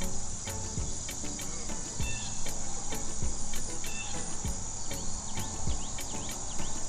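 Crickets chirping steadily in a fast pulsed rhythm, with a few short whistled bird calls over them.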